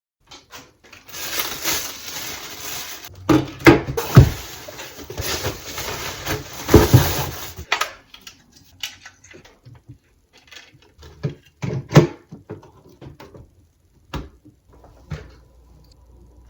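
Hands handling computer hardware and its packaging: a dense rustling for several seconds broken by a few sharp knocks and clatters, then scattered light clicks and taps.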